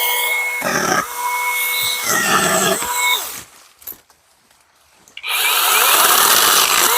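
Battery-powered mini chainsaw (Imoum Live) whining at a steady pitch in short bursts as it cuts through branches, its motor spinning up and winding down between cuts. After a pause of a second or two, a longer, louder cut follows, and the motor winds down near the end.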